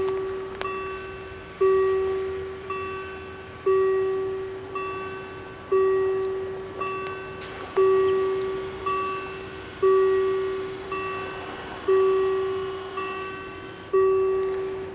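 Level crossing warning bells ringing slow gong strokes, a loud stroke about every two seconds with a fainter one about a second after each. They sound while the barriers lower, warning of an approaching train, and stop near the end once the barriers are down.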